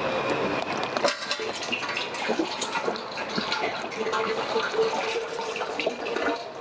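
Liquid pouring and splashing into a container, with small knocks and clatter.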